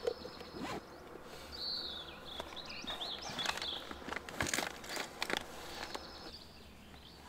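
Birds chirping in short gliding calls, with scattered clicks and knocks.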